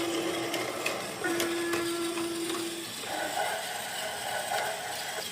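Battery-powered Plarail toy train running, its small motor whirring with light clicks from the wheels on plastic track. A steady low hum tone breaks off twice and changes to a higher tone about three seconds in.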